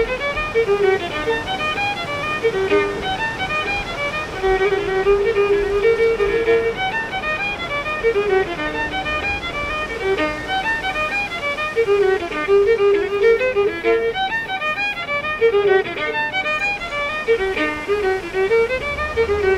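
Background music: a fiddle playing a quick melody, one note after another in rapid steps.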